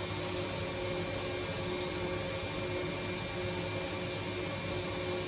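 Steady background hum and hiss of a small room, unchanging, with a few faint constant tones.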